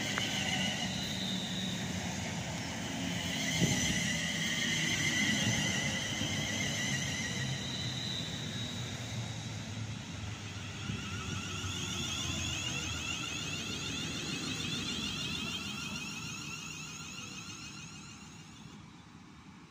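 London Northwestern Railway Class 350 Desiro electric multiple unit running slowly into the platform and braking to a stand, with a rumble of wheels on rail and several high, wavering whines. The noise dies away over the last few seconds as the train stops.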